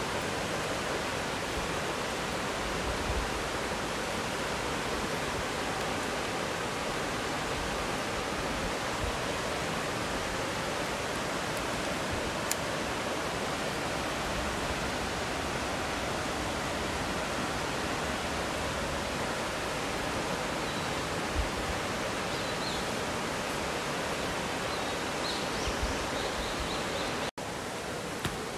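Steady rushing water, even and unbroken, with a single sharp tick about twelve seconds in and a brief dropout near the end.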